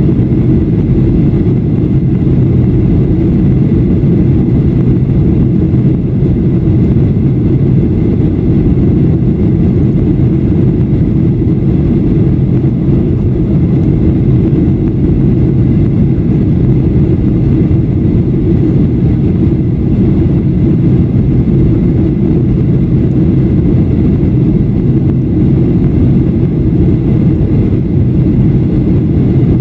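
Cabin noise inside a jet airliner in flight: the steady, loud, low rumble of the engines and rushing air, unchanging throughout.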